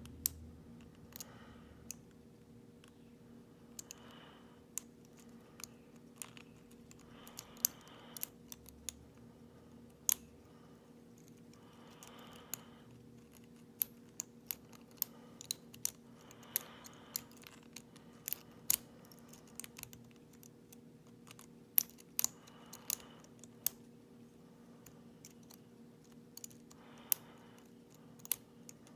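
Lock pick and tension wrench working the pins of a Schlage padlock: scattered, irregular sharp metallic clicks as the pins are probed and set.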